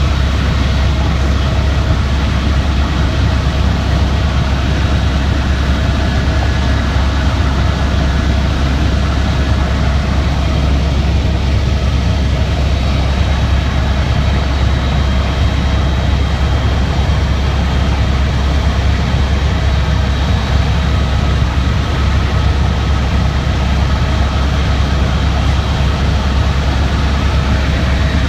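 Steady drone of an aircraft's engine heard from inside the cabin: a strong low hum with a few thin, steady whining tones above it, unbroken throughout.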